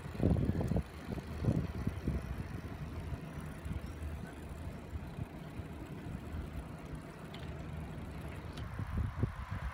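Wind rumbling on the microphone outdoors, in loud gusts over the first two seconds, then settling to a steady low rumble with a few more gusts near the end.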